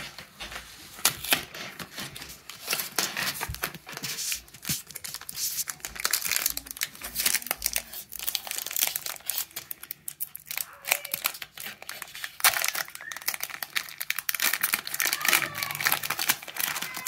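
Pokémon card packaging crinkling and tearing as a foil booster pack is opened by hand, a dense run of sharp crackles.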